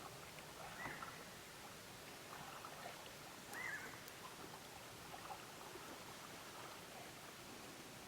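Faint animal calls: two short, high calls that rise and then fall, one about a second in and a louder one a few seconds later, over a quiet outdoor hush.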